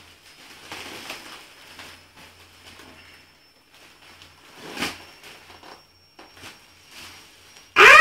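Foil helium balloons crinkling, with the faint hiss of helium being sucked from them and a short louder gasp about five seconds in. Near the end comes a sudden loud, squeaky helium-pitched voice cry that falls in pitch.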